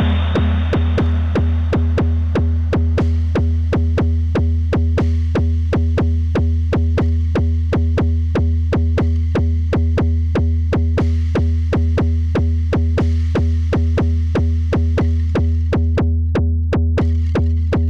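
Eurorack modular synthesizer playing electronic percussion: an even, fast pulse of clicky hits about four a second over a constant deep bass drone. A noisy swept wash fades out in the first second, and near the end the high end is cut away for a moment.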